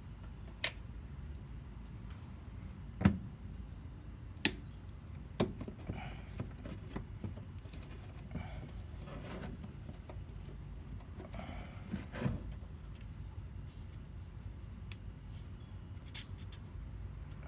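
Hand tools and metal parts being worked during ignition coil removal in an engine bay. There are several sharp clicks and knocks in the first five or six seconds, then scattered quieter ticks and rustling.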